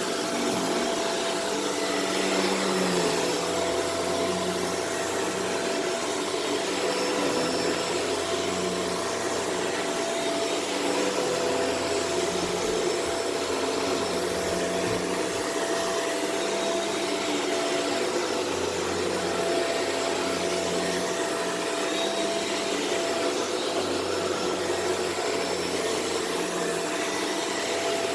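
Shark Rotator Powered Lift-Away upright vacuum running steadily over carpet, sucking up deodorizing powder, with a steady whine from the motor. Its low rumble swells and fades every few seconds as it is pushed back and forth.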